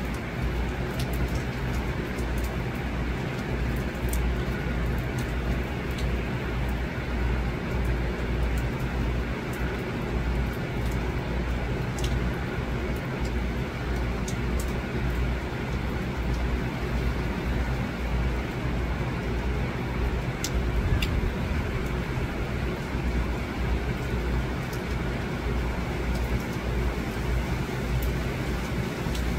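Steady rain falling, with a low rumble of wind on the microphone and scattered sharp ticks of drops.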